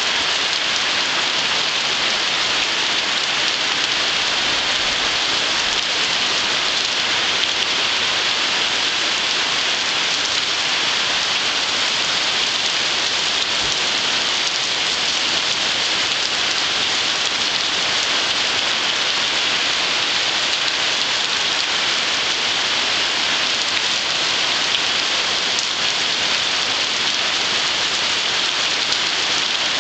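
Heavy rain falling steadily onto a lake's surface: a dense, even hiss of drops hitting the water.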